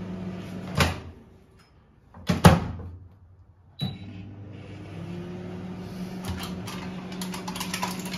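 Microwave oven running with a steady hum while butter melts in it. About a second in it stops with a click, a loud knock follows, and near four seconds a short beep and a click start the hum again. Light clinks of dishes come near the end.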